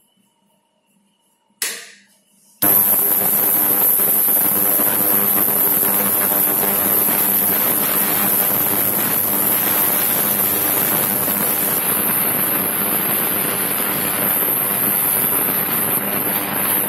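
A sharp click, then about a second later a 6-litre ultrasonic jewellery cleaner starts running. It gives a loud, steady crackling hiss of cavitation in its steel tank, topped by a high-pitched whine.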